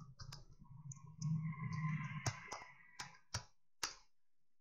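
Computer keyboard keystrokes and clicks as an email address is typed, a scatter of separate sharp taps, the last few about half a second apart, over a faint low hum.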